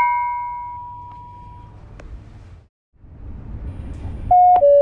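Stop-request chime on an MVR GTW railcar: a single ding that fades over about two seconds, over the low rumble of the train running. Near the end a two-note falling gong sounds, the chime that comes before the next-stop announcement.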